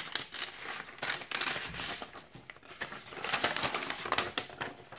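Packaging crinkling and rustling as it is handled, with many small irregular clicks and crackles.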